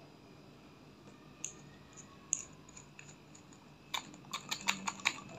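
A glass nail polish bottle being handled and its plastic cap twisted loose: a few scattered light clicks, then a quick run of about eight sharper clicks near the end.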